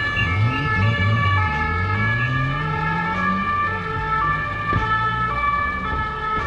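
Emergency-vehicle sirens sounding over city traffic, their steady high tones shifting pitch in steps. A low engine note rises over a couple of seconds in the middle.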